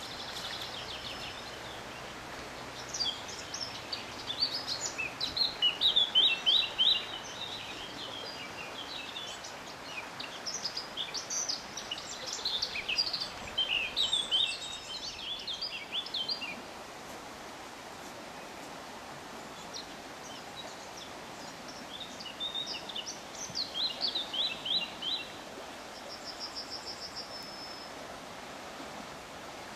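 A songbird singing in three bouts of quick, high notes, with a short buzzy note near the end, over a steady background hiss.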